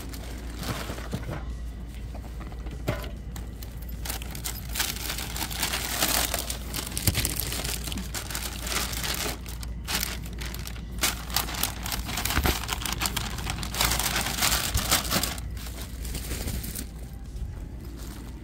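Thin plastic grocery bag crinkling and rustling as it is handled, in irregular bursts.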